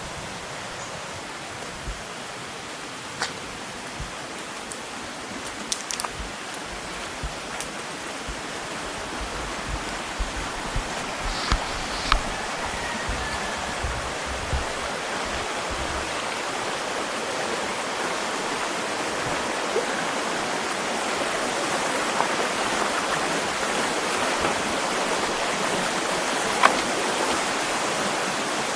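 Flowing river water, a steady rushing that grows gradually louder, with a few sharp clicks and taps scattered over it.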